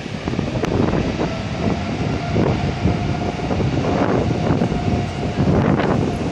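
Boeing 777-200's twin turbofan engines at takeoff thrust during the takeoff roll: a loud, crackling rumble that jumps up in loudness at the start and stays high, with a faint steady whine over it.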